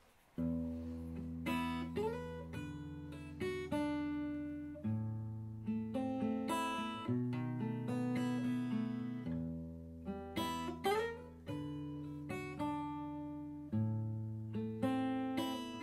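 Acoustic guitar playing an instrumental introduction, picked notes ringing out over sustained bass notes, starting about half a second in.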